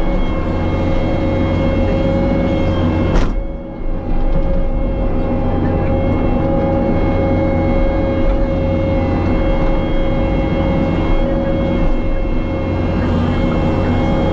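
Diesel engine of compact earthmoving equipment running steadily, a constant hum with a steady whine over it. About three seconds in there is a sharp knock, and the level dips briefly before the running sound picks back up.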